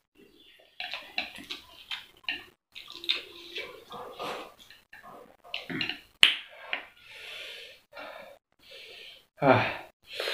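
Instant noodles being slurped and chewed close to the microphone: a run of short wet slurps and mouth noises with quick breaths between mouthfuls, one sharp click a little after six seconds, and two louder slurps near the end.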